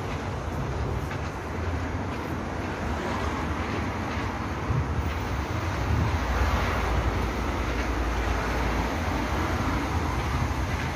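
Road traffic on a highway alongside: a steady rumble of engines and tyres that swells about six seconds in as a vehicle passes.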